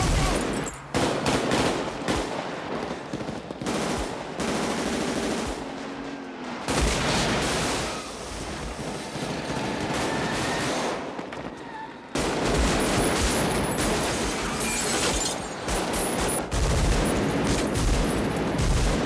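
Sustained rapid automatic rifle fire from an M16-style rifle, in long volleys that thin out for a few seconds about halfway through.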